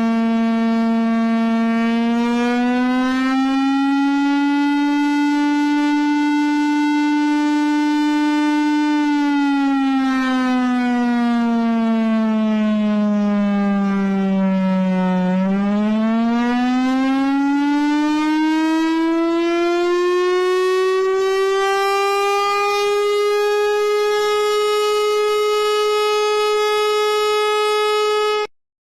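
Air raid siren sounding one continuous tone: it rises a little and holds, slowly falls, then climbs to a higher pitch and holds there before cutting off suddenly near the end.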